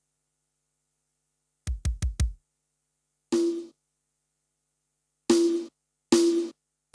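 Yamaha PSR-S770 arranger keyboard playing drum-machine sounds: after a silence, four quick kick-drum hits about two seconds in, then short stabs of drums with a held note, three times, at gaps of a second or two.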